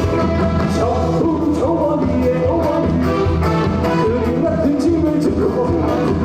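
Upbeat trot song with a steady drum beat and a voice singing the melody.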